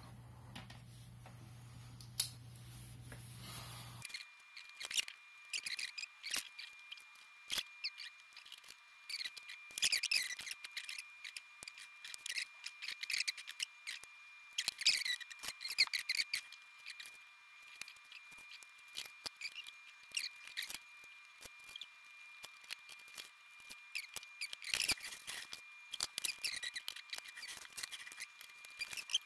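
Small hand tools working on a circuit board: many short, irregular clicks and scrapes, in clusters, with a faint steady high tone underneath from about four seconds in.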